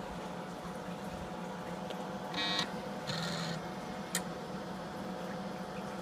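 Texas Instruments Portable Professional Computer restarting after a control-alt-delete. The machine hums steadily, gives a short buzzy beep about two and a half seconds in, then a second short buzz, and a sharp click about four seconds in.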